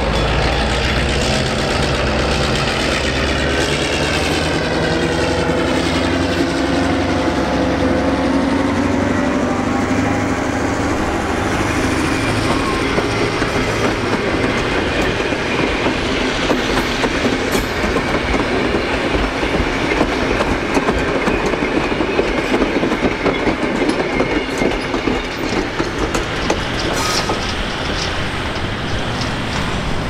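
Diesel-electric locomotive T334 passing close by, its engine note dropping in pitch as it goes past. It is followed by vintage passenger carriages rolling past with a steady clickety-clack of wheels over the rail joints.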